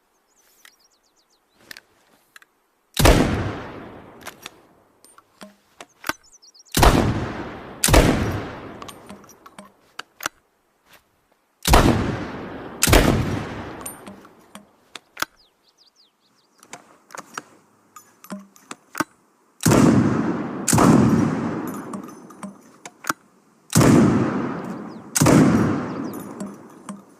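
Makeshift shotgun sound effect: nine sharp bangs, each with a long fading tail, mostly in pairs about a second apart, with small clicks and rattles between them.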